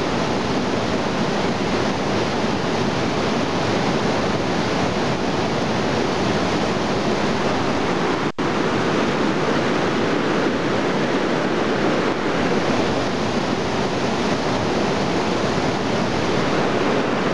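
Loud, steady rushing of a fast river, an even roar of white water. It drops out for an instant about eight seconds in.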